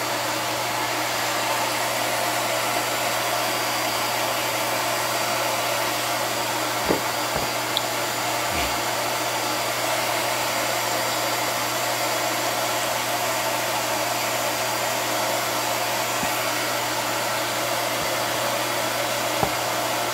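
Steady blower-like rushing noise with a low hum underneath, unchanged throughout, and a few faint knocks about seven seconds in and again near the end.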